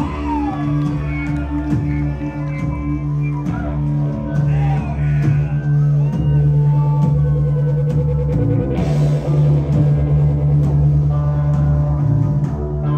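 Live rock band playing: electric guitars and bass holding a low note under a steady drum-kit beat. A haze of cymbals comes in about nine seconds in.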